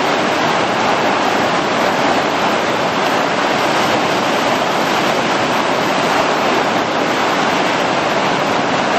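River whitewater rapids rushing in a loud, steady, unbroken stream of noise.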